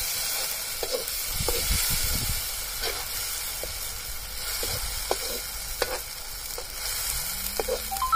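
A freshly added ginger, garlic, mint, onion and tomato paste sizzles in hot oil in a black metal kadai. A perforated metal ladle scrapes and taps the pan at irregular moments as the masala is stirred.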